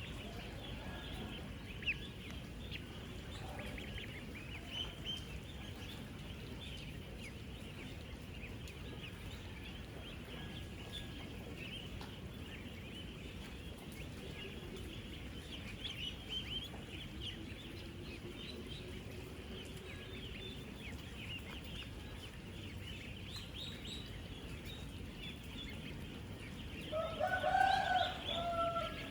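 A large flock of ten-day-old ducklings peeping all at once: a dense, constant chorus of short high-pitched chirps over a low steady background noise. Near the end a louder, lower call stands out for about two seconds.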